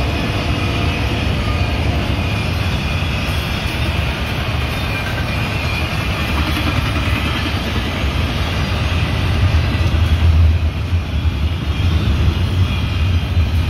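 Double-stack intermodal freight train's well cars rolling past: a steady rumble of steel wheels on rail with a faint high whine on top, swelling briefly about ten seconds in.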